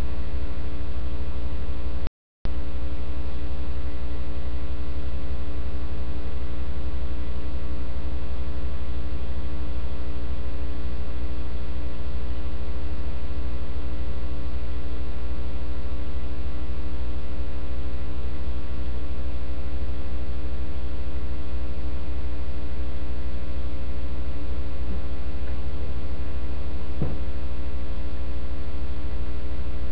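Loud, steady electrical mains hum with many evenly spaced overtones, the kind picked up on the audio line of a security-camera DVR feed. It cuts out completely for a moment about two seconds in.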